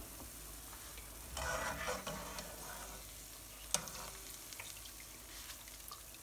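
Besan boondi frying in a wok of hot oil, with a steady sizzle that swells for about a second, about a second and a half in. A single sharp clink sounds near four seconds in.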